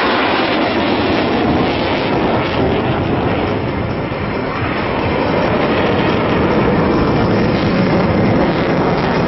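Twin-engine F-15 fighter jet's engines running loud and steady through a high-G turn.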